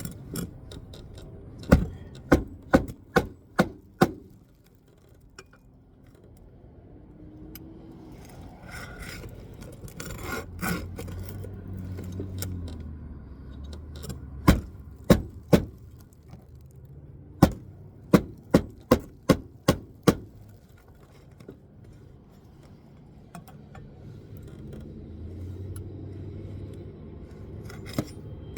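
Hammer driving roofing nails flush under lifted asphalt shingles: three quick runs of sharp strikes, about two to three a second, with scraping and rubbing between them.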